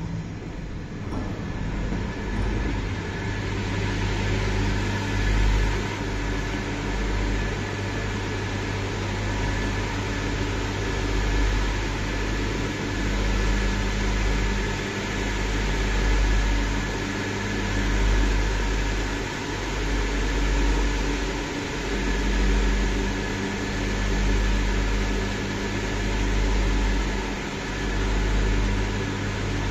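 Electric blower fans keeping inflatable sculptures inflated: a steady whirring hum with several held tones, growing louder about two seconds in, over a low rumble that swells and fades every couple of seconds.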